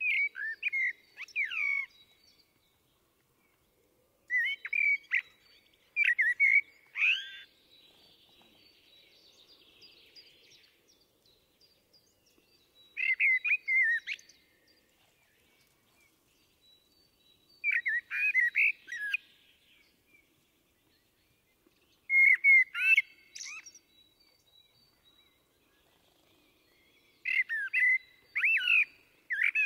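Common blackbird singing: seven separate phrases of mellow, fluting warble, each a second or two long and ending in a thinner, higher twitter, with pauses of a few seconds between them.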